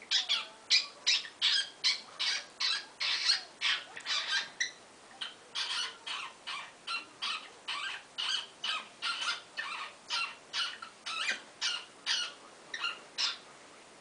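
Cockatiel giving a rapid series of short, harsh, hissy calls, about three a second. There is a brief pause about five seconds in, and the calls stop shortly before the end.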